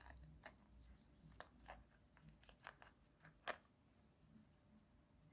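Near silence with faint, scattered clicks and taps from fingers handling a disassembled action camera's circuit board and screen, the clearest about three and a half seconds in.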